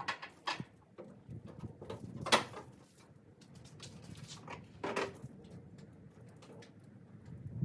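Scattered sharp clicks and knocks, a few of them louder, from parts and tools being handled while a pickup's taillight assemblies are fitted.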